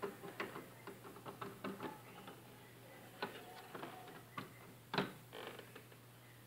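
Light irregular clicks and taps of a circuit board being handled and set down onto a TV's metal chassis, with one sharper knock about five seconds in.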